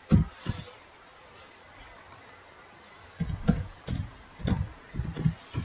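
Computer keyboard keystrokes while typing a word: two near the start, a pause, then a quick run of about seven in the second half.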